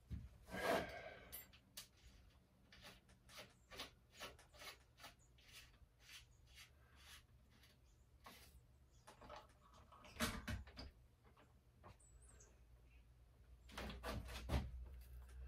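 Faint clicks, taps and small metal knocks of hands and tools working on a dirt bike's top triple clamp, with louder knocks about a second in, around ten seconds in and near the end, over a low steady hum.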